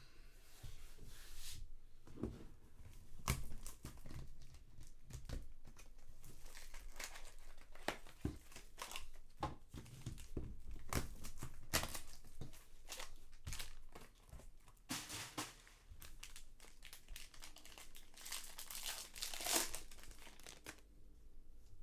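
Trading card pack wrappers from 2019 Bowman Draft Sapphire being torn open and crinkled by hand, a steady run of irregular crackling and tearing that is busiest in the second half.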